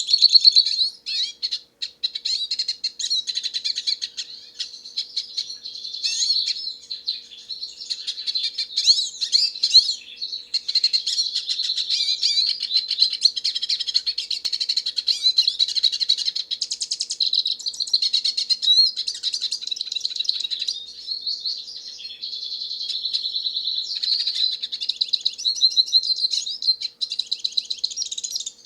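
Hooded siskin (pintassilgo) singing a long, fast, twittering song of high chirps and trills, with a short break about a second and a half in.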